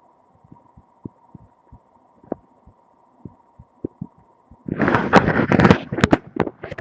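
Webcam microphone pressed against the body, picking up faint, irregular low thumps over a steady hum. About two-thirds of the way in there is a loud second of rubbing and scraping, followed by a few sharp clicks, as the microphone is shifted against the chest.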